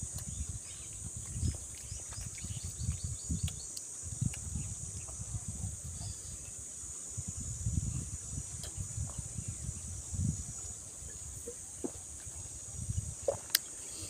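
A steady high-pitched insect drone runs throughout, under repeated close-up chewing and mouth noises of someone eating, with a few sharp clicks near the end.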